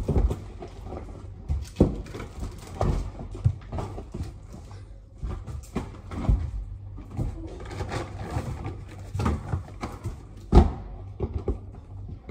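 Irregular knocks and clunks without speech; the loudest thump comes about ten and a half seconds in.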